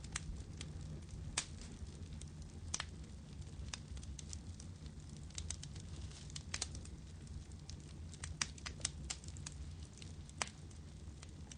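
Firewood burning, with irregular sharp crackles and pops over a low steady rumble.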